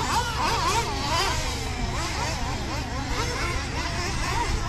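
Several radio-controlled gas trucks' small engines running together, their overlapping whines rising and falling in pitch as the trucks speed up and slow down around the track.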